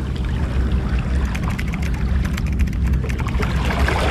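Steady low wind rumble buffeting an action camera's microphone, with water lapping against the rocks. A patter of faint ticks comes through in the middle.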